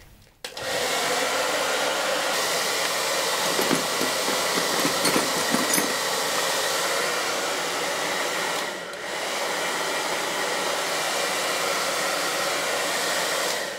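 A handheld hair dryer switches on about half a second in and runs steadily, blowing into a plastic toolbox to dry rain-wet hand tools against rust. Its sound dips briefly near nine seconds and cuts off near the end, and a few light clinks of the metal tools come through.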